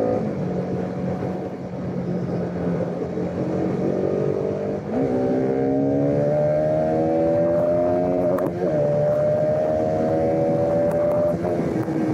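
Bajaj Pulsar RS200's single-cylinder engine heard from the saddle while riding. The engine note sits low for the first few seconds, jumps up about five seconds in, then climbs steadily as the bike accelerates. There is a brief break in the note about eight and a half seconds in, and the engine eases off near the end.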